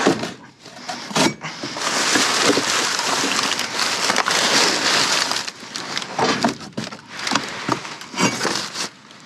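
A hand tool knocking and prying at a piece of scrap metal frozen to the ground: two sharp knocks at the start, a few seconds of scraping and crunching, then a run of separate knocks. The metal stays stuck fast, frozen in place.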